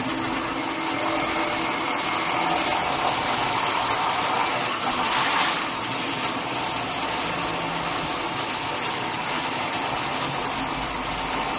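Machine running steadily as printed vinyl wrap film winds onto its roller: a continuous mechanical hum with faint steady tones. A brief louder swell of noise comes about five seconds in.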